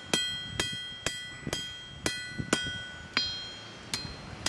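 Hand hammer striking hot car spring steel on an anvil, about two blows a second, each blow leaving the anvil ringing. This is the straightening of the cut length of spring.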